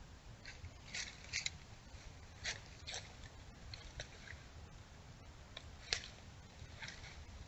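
Dry leaf litter rustling and crackling in short, irregular bursts, about eight in all, the sharpest about six seconds in, over a faint steady low rumble.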